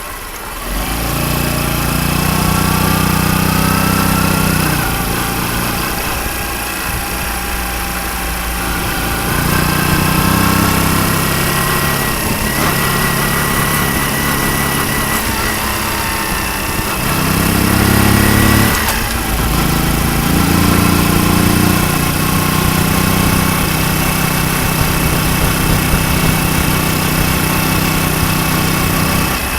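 Honda Super Cub 90's single-cylinder four-stroke engine, bored out to 105 cc, running, its revs rising and falling several times. The cam chain is now held by a manual tensioner, and the ticking from a slack cam chain is no longer heard.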